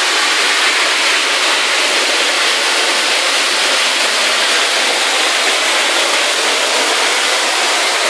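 Giessbach Falls pouring down at close range: a loud, steady rush of falling water with no let-up and little deep rumble.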